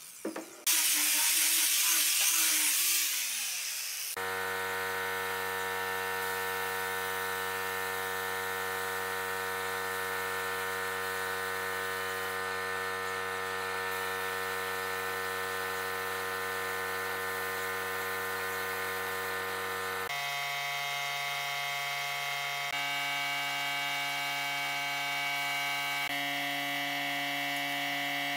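A hand-held angle grinder sanding wood with a sanding disc, then winding down about three seconds in. A steady buzzing hum with a hiss of air follows while a finish is sprayed from an air spray gun; the hum's pitch jumps abruptly a few times near the end.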